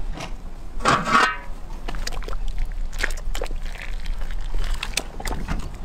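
Cast-iron cauldron lid scraping as it is moved, about a second in, then metal clinks and liquid splashing as broth is poured from a pot, over a steady low rumble.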